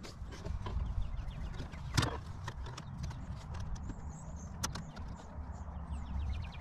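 Fingers pressing and smoothing a carbon-fiber vinyl overlay onto plastic dash trim: scattered soft taps and clicks against the plastic, with handling rumble underneath.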